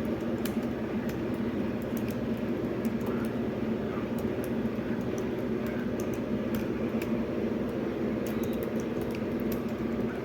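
Typing on a Slim Folio tablet keyboard case: irregular light key clicks, with its fresh battery in. A steady low hum runs underneath.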